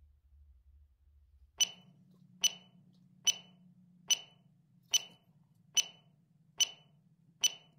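A bright, glassy clink repeated eight times at an even pace, a little faster than one a second, over a low steady hum. It is an edited-in sound effect, not the rabbit.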